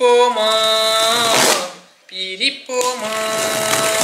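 A voice singing two long drawn-out phrases, the first ending after about a second and a half and the second starting near the three-second mark. Under the second phrase, a utility knife blade scrapes as it slits packing tape on a cardboard box.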